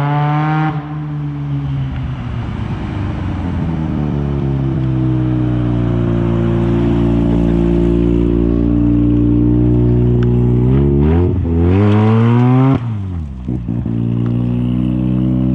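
1983 Mazda RX-7's two-rotor 12A rotary engine, heard through an exhaust fitted with a pre-silencer, as the car is driven and accelerates. The pitch dips briefly near the start, then climbs steadily. It revs up sharply around two-thirds of the way through, drops suddenly as the revs fall, then holds a steady note.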